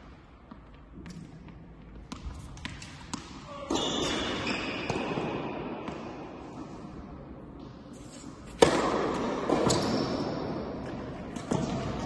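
Tennis ball bounced a few times on the court, then two hard racket strikes on the ball, about four seconds in and again near nine seconds, the second the louder; each rings on in the long echo of the tennis hall.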